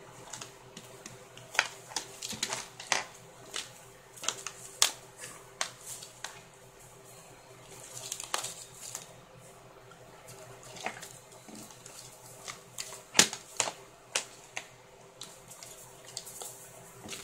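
A kitten's paws and claws scuffling on a cluttered desk as it pounces on and bats a Beanie Baby plush lobster among papers: irregular clicks, knocks and rustles, the sharpest about five seconds in and again near thirteen seconds.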